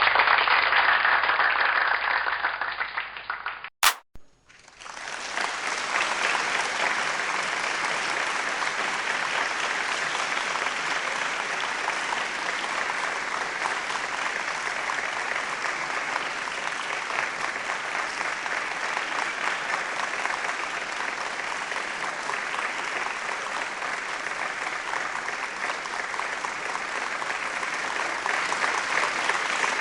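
Audience applause, two recordings back to back: a first burst of clapping cuts off abruptly about four seconds in, followed by a sharp click. A second round of crowd applause then fades in and continues steadily.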